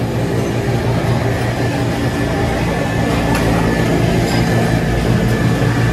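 Steady low mechanical hum with a thin, steady high tone above it, the drone of machinery running without change.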